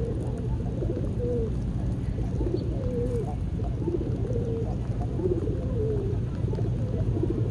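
Pigeons cooing: short arched coos repeating about once a second, over a steady low rumble.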